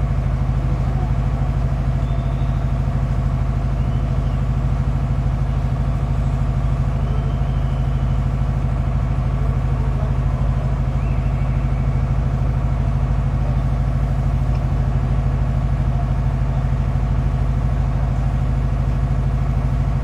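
A steady, low, even hum like an idling engine, with no separate bangs or cracks standing out.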